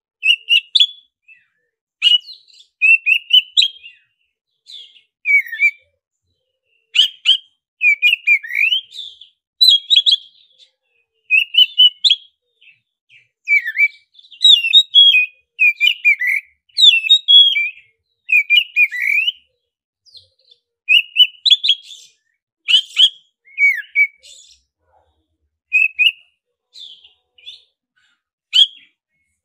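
Black-breasted Oriental magpie-robin singing: quick phrases of varied gliding whistles and chirps mixed with sharp clicks, coming in short bursts with brief pauses between.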